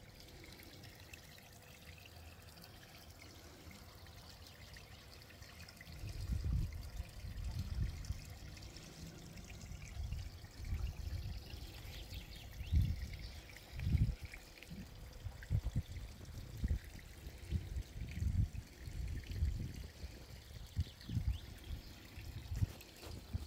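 Water trickling steadily. From about six seconds in, wind buffets the microphone in irregular low gusts.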